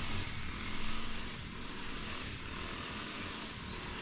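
Steady outdoor background noise with a low rumble underneath, a little louder about a second in.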